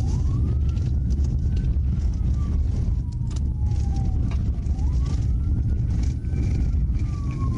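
Police car siren in a slow wail, rising and falling about every five seconds, over a loud low rumble of the pursuing patrol car's engine and tyres on a dirt road, with scattered sharp ticks.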